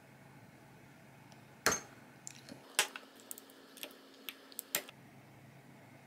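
Metal wax-sealing tools, a brass seal stamp and a small metal wax-melting spoon, being handled and set down, clinking and tapping on the table. A sharp knock comes nearly two seconds in and another just under three seconds in, then a few lighter clinks that stop about five seconds in.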